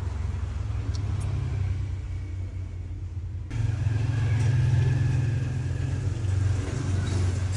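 A steady low rumble, with the higher background noise changing abruptly about three and a half seconds in.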